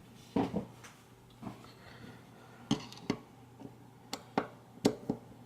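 A Phillips screwdriver and a padlock being handled while the lock is taken apart. Irregular sharp metallic clicks and knocks, about nine spread over a few seconds.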